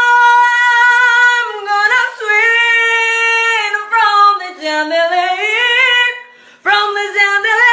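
A woman singing loudly with no accompaniment, belting long held high notes; about midway the pitch slides down low and climbs back up, and after a brief break near the end she comes in on another held note.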